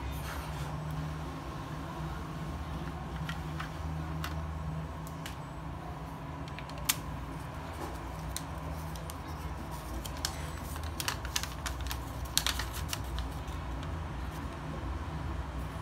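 Hands handling the plastic case of a Rotring Isograph pen set: scattered clicks and taps of plastic, the sharpest about seven seconds in and a quick cluster of them around eleven to twelve seconds in, over a steady low hum.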